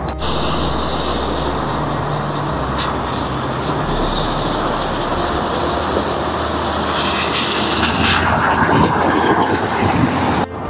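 A vehicle passing on the road, a steady rush of noise that builds to its loudest near the end.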